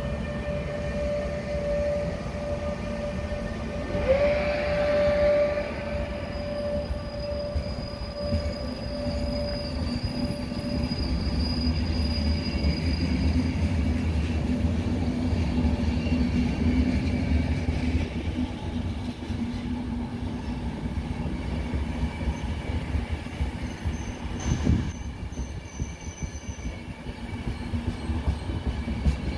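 FS E403 electric locomotive hauling a train of sleeper coaches past at speed. The locomotive's electric drive gives a whine that rises in pitch at the start and then holds steady, fading after about 13 s, while the coaches roll by with a continuous low rumble and wheel clatter. There is a brief louder sound about four seconds in and a single knock near the 25-second mark.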